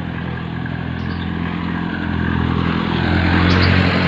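Motor vehicle engine running steadily with road noise, growing louder over the last second or two.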